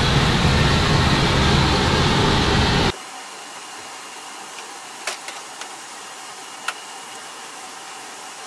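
Loud, steady rushing noise inside a B-52 cockpit, which cuts off abruptly about three seconds in to a quieter steady hiss. A few sharp clicks follow as the cockpit controls by the rudder trim knob are handled.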